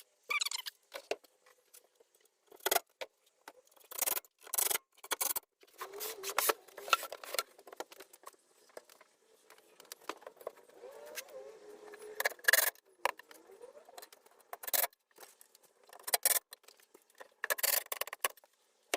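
Irregular clinks, knocks and scraping from assembling a plywood cabinet with glue and pocket-hole screws.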